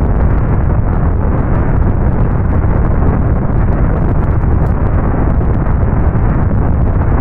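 Natural-disaster sound effect: a loud, steady, deep rumbling roar with no breaks.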